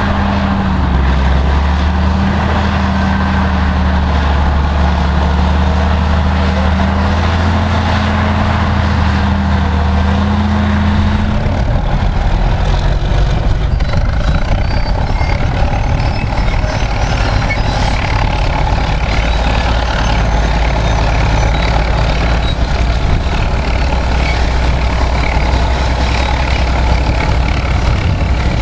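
Heavy Caterpillar diesel engines of a 630B motor scraper and its D7E pusher dozer running steadily under load; about twelve seconds in the engine note drops lower.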